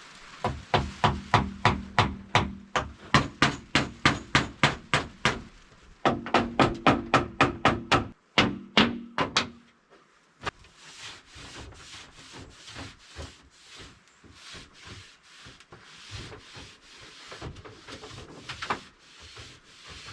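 Hammer blows on wood, about three a second in two quick runs, with a ringing note beneath them. Then softer rhythmic strokes follow, about two a second.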